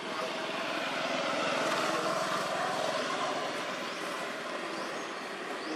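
Distant engine noise of something passing, swelling to a peak about two seconds in and then slowly fading.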